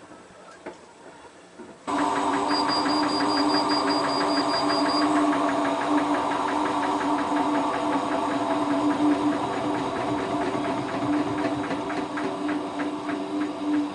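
Hotpoint Ultima WT960 washing machine, quiet with a few faint clicks, then its motor cuts in abruptly about two seconds in and runs loudly and steadily with a hum and a fast, even rattle.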